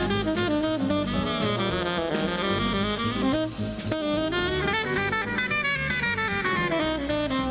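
Tenor saxophone soloing in a small jazz group, a line of notes running up and down over upright bass and drums.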